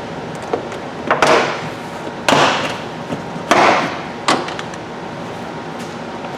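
Plastic trunk trim being pulled off a car's trunk lining: a series of sharp snaps and pops as push clips let go, each followed by a brief scrape of the panel, about four in a few seconds.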